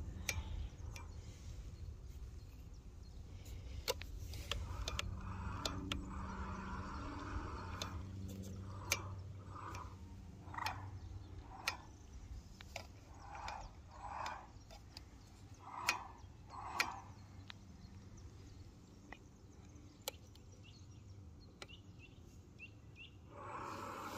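Quiet outdoor ambience with a faint low hum in the first half and birds calling: short notes repeated through the middle, several in pairs, among scattered sharp clicks.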